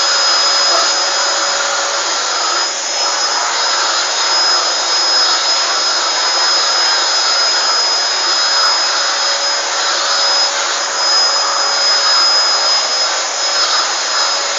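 Vacuum cleaner running steadily, its motor noise carrying a constant high whine.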